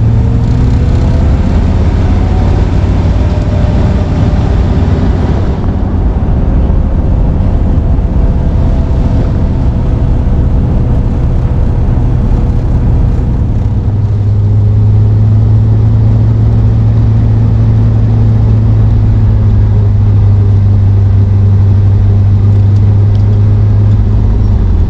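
1971 Corvette's V8 engine running under way on a slow drive down the street, its note rising a little early on and growing stronger about halfway through.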